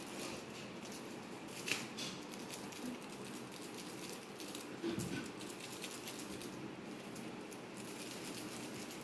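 Faint rustling and crinkling of a clear plastic bag as it is dangled and batted by kittens, with light taps and a dull thump about five seconds in.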